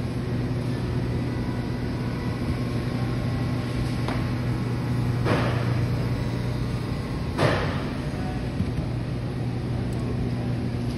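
Steady low hum of a grocery store's background, with two short noisy scuffs about five and seven and a half seconds in, the second the loudest.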